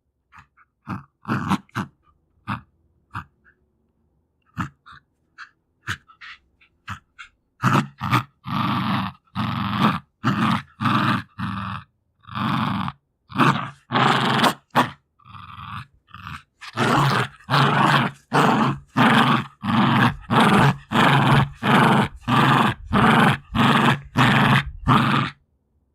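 Jack Russell terrier growling while tugging at a toy. A few faint short breaths and growls come first, then from about seven seconds in a run of loud, short growls, about two a second.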